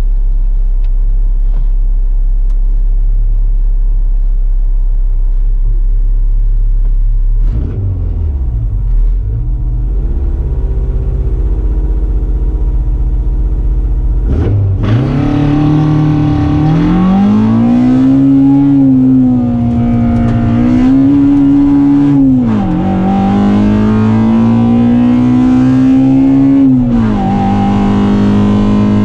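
MG ZR 1.4's four-cylinder K-series engine heard from inside the cabin: idling steadily, then blipped and held at raised revs for several seconds, then a hard launch with the engine note climbing. The pitch drops at each of two upshifts, once past the middle and once near the end.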